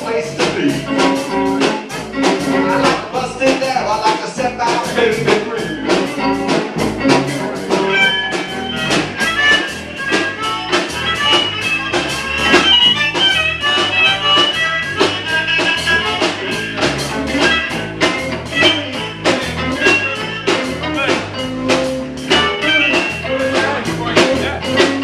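A live band playing a blues number on acoustic and electric guitars, with steady strumming throughout; a higher lead line comes in about eight seconds in.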